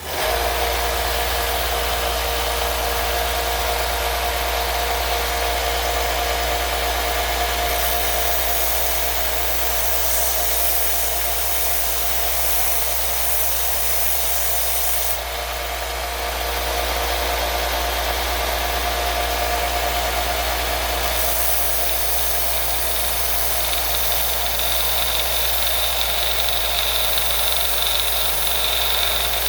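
Belt sander with a worn 80-grit belt switching on and running steadily: a low motor hum under a broad sanding hiss, whose high end shifts several times.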